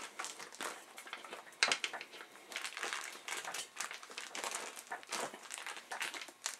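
Leather cover of a motorcycle backrest being squeezed and worked by hand over the plastic insert inside it: irregular crinkling and rubbing noises, with one sharper tap about a second and a half in.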